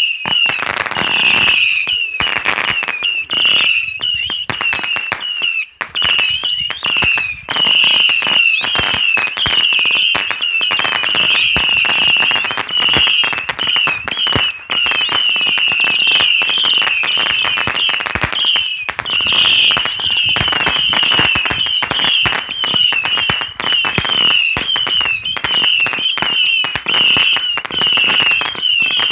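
Consumer fireworks going off on the ground, with a dense run of rapid pops and crackles that keeps up without a break. A steady, wavering high-pitched tone sounds throughout.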